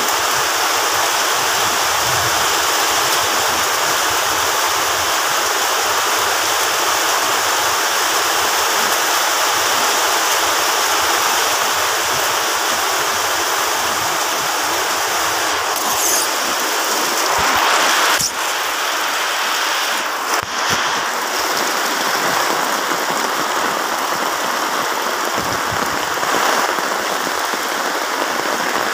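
Heavy typhoon rain pouring steadily onto a road and roofs, a dense even hiss. A few brief rustles and knocks come partway through.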